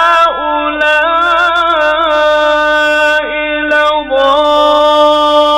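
A man's voice chanting Quranic recitation in a melodic, drawn-out tajweed style, with long held notes and wavering ornaments, here on the words 'inna ha'ula'i'.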